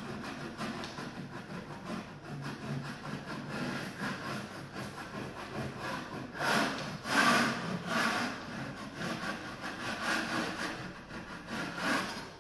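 A metal putty knife scraped across a drywall wall in quick repeated strokes, loudest about two-thirds of the way through.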